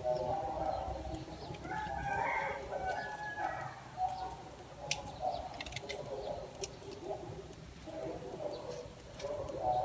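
A rooster crowing: one long call over the first few seconds and another near the end. In between come a few sharp snips, typical of pruning shears cutting bonsai leaves.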